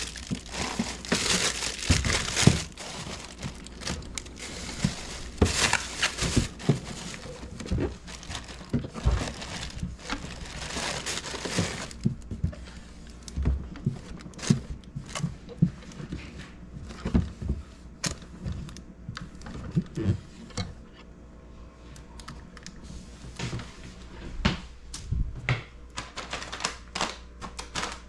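Plastic packaging crinkling as it is handled for about the first twelve seconds, then scattered clicks and light knocks of items being moved and set down.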